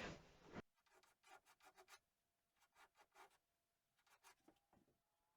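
Near silence, with faint, brief rubbing strokes in small clusters.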